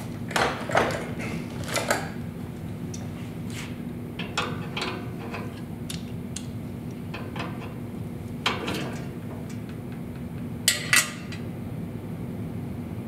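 Scattered light metallic clicks and taps of a small wrench working the steel guide blocks and their screws on a band saw's upper blade guide, with two sharper clinks close together near the end.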